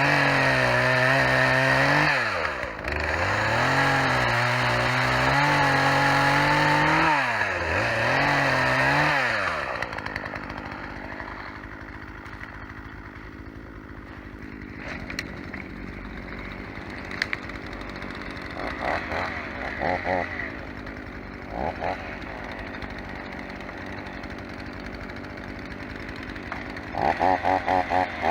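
Two-stroke chainsaw running hard, its pitch sagging and recovering several times as it works. About ten seconds in it drops to a much quieter idle, with a few short bursts of sound later on.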